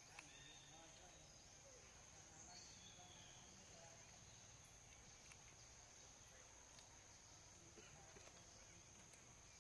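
Faint, steady, high-pitched insect drone, a continuous trill of crickets or cicadas, with a few soft ticks over it.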